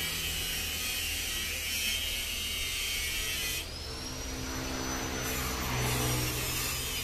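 A motor running steadily with a low hum. A higher hiss over it cuts off suddenly about three and a half seconds in.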